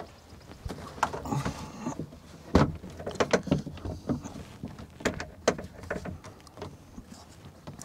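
Irregular clicks, knocks and rattles as hands work the rear windshield wiper blade and back window fittings of a Kubota BX2380 tractor cab.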